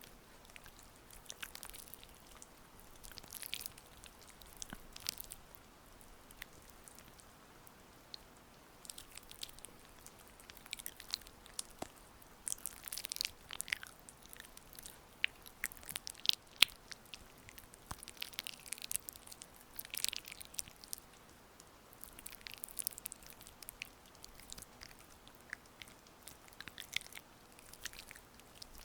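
Oiled hands massaging skin close to the microphone: soft, wet, sticky clicking and squelching in irregular clusters, with short quieter pauses between strokes.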